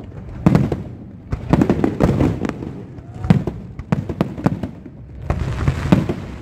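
Fireworks display: many sharp bangs and booms in quick clusters about a second apart, with a low rumble between them.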